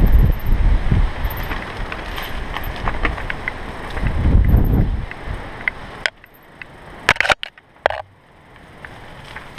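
Mountain bike rolling fast over rough dirt singletrack, with wind buffeting the microphone and the bike rattling over the bumps. About six seconds in the wind drops away, and a few sharp clacks follow.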